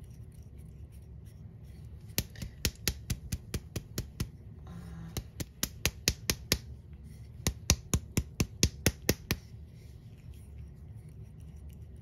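Rapid sharp clicks of a small hard object being handled, about five a second, in three runs with short pauses between.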